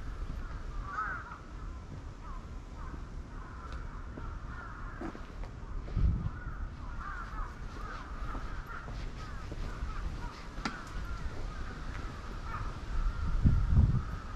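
Crows cawing among a continuous chatter of bird calls. There is a low thud about six seconds in, and low rumbling builds near the end.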